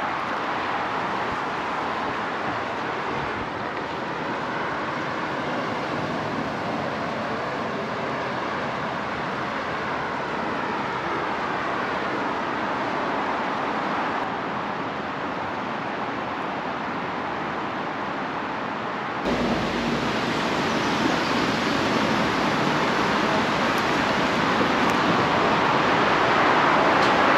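Steady roar of heavy motorway traffic, with faint rising and falling tones of vehicles passing, mixed with the rush of river water over shallow rapids below. It steps up suddenly in loudness about two-thirds of the way through and stays louder.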